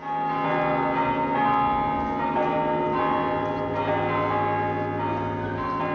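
Church bells pealing: several bells struck in overlapping succession, their tones ringing on together in a continuous peal.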